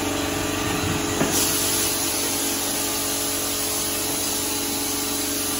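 A machine's motor running steadily: a loud, even hiss over a low, constant hum, the hiss growing brighter about a second in.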